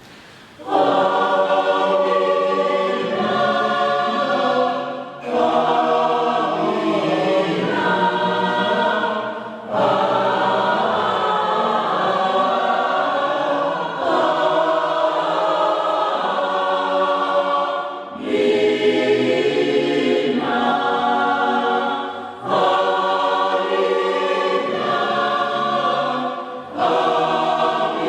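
Church choir singing in several voice parts, in phrases of about four to five seconds each, with a brief break between phrases.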